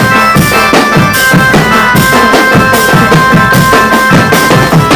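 Loud music with a steady drum beat under a held, reedy wind-instrument melody.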